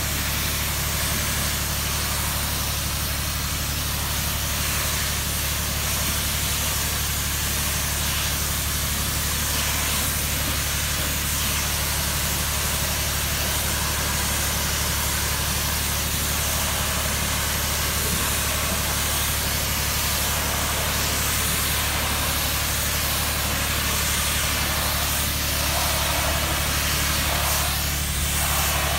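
Pressure washer running steadily, its engine droning, with the hiss of the water spray from the wand striking vinyl siding.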